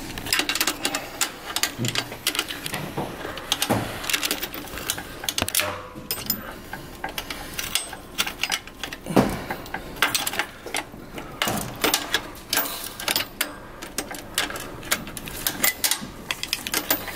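A wrench working the rear axle nut of an e-bike hub motor as it is tightened, giving rapid, irregular metallic clicking and ticking.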